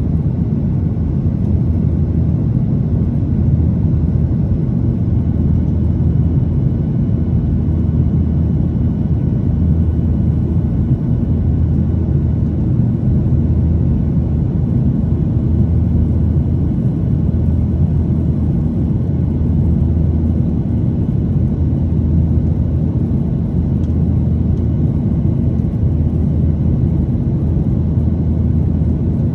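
Steady low rumble of a jet airliner's engines and rushing air, heard from inside the passenger cabin.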